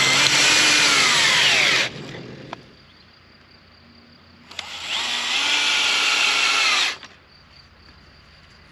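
Cordless drill driving screw-in electric-fence insulators into wooden fence posts: two runs of about two seconds, the second starting about four and a half seconds in. In each run the motor's pitch falls as the screw bites into the wood.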